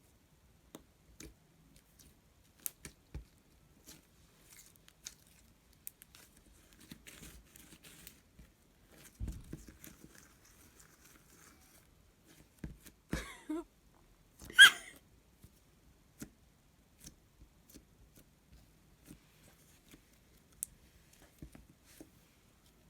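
Slime being handled by hand: scattered small sticky clicks and crackles, with a louder squelching burst about two-thirds of the way through.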